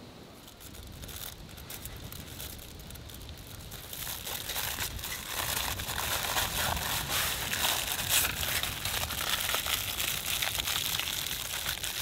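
Packaging crinkling and rustling as it is handled, a dense run of small crackles. It starts softly about half a second in and gets louder from about four seconds in.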